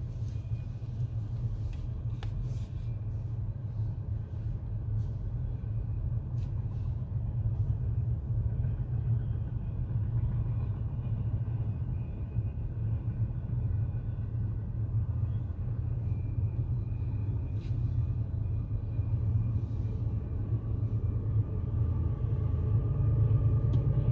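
Highway traffic with a low, steady rumble that grows louder near the end.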